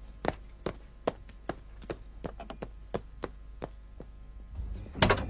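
Footsteps on a hard floor, short sharp taps about two or three a second, with one louder knock near the end.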